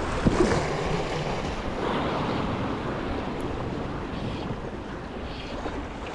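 Sea waves washing against a shoreline rock, with wind buffeting the microphone. A couple of brief knocks near the start.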